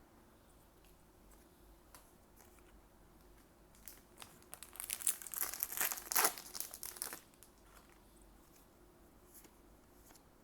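Foil trading-card booster pack wrapper crinkling and tearing, in a burst of crackling from about four to seven seconds in, with a few light ticks before and after.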